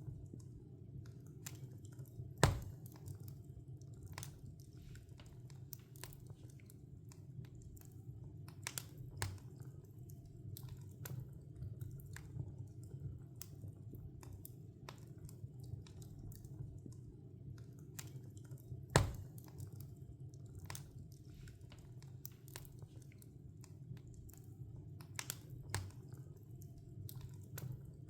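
Wood log fire crackling: a steady low rumble of flames under frequent small snaps, with two loud pops, one about two and a half seconds in and another about two-thirds of the way through.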